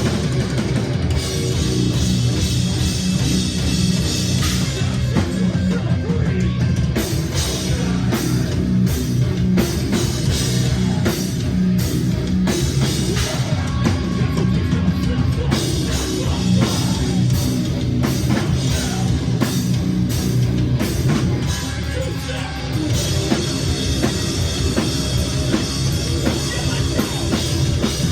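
A loud live rock band playing with distorted guitars, bass and a drum kit, heavy and fast in a hardcore or metal vein, without a break except for a short dip about three-quarters of the way through.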